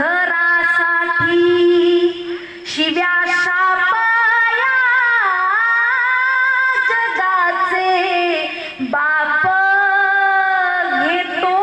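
A woman's solo voice singing a slow devotional kirtan melody into a microphone, holding long, wavering notes in drawn-out phrases.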